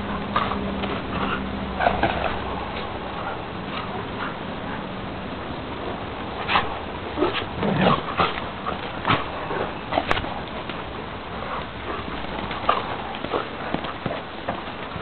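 A Russian black terrier and a Siberian husky play-fighting: many short, scattered dog vocalisations and scuffles come in irregular bursts, busiest about halfway through.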